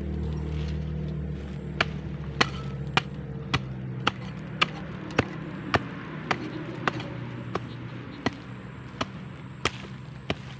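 A small hand digging tool chopping into soil, digging out a metal-detector target: about fourteen sharp strikes at a steady pace, a little under two a second. A low steady hum runs underneath and fades away.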